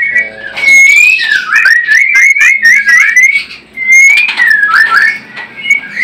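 White-rumped shama (murai batu) singing: clear whistled notes, then a fast run of rising and falling phrases, with a brief pause a little past halfway.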